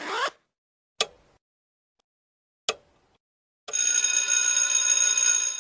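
Intro sound effects for an animated logo: the tail of a rising swoosh, two short sharp clicks, then about two seconds of a bright, steady electronic ringing tone that cuts off abruptly.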